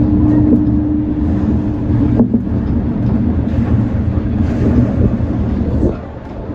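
Shonan Monorail 5600-series suspended monorail car running, heard from the cab as a steady low rumble. A steady hum over it stops with a click about two seconds in. The noise drops near the end as the car slows into a station.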